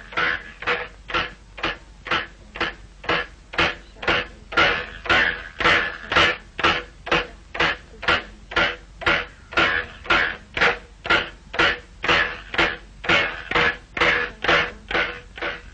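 A steady rhythmic knocking, about two strokes a second, each stroke short and sharp.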